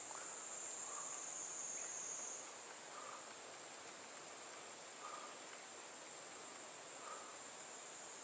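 Steady high-pitched chorus of insects, over a faint hiss. Its pitch steps up slightly about two and a half seconds in, and a faint short call repeats about every two seconds.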